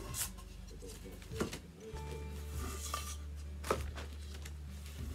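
Thin wooden sign boards being flipped over and set down on a paper-covered table: several light wooden knocks and clacks, over steady background music.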